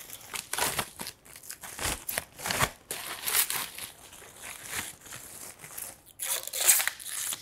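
Plastic wrapping crinkling and rustling as a monitor stand's upright piece is unwrapped, in irregular swishes that are loudest near the end, with a couple of soft knocks about two seconds in.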